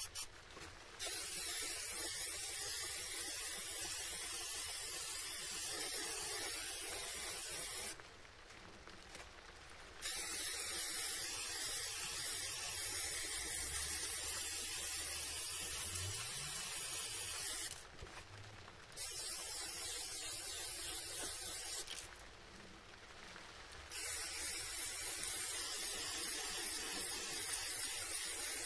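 Aerosol can of spray paint hissing in four long sprays of several seconds each, with pauses of a second or two between them.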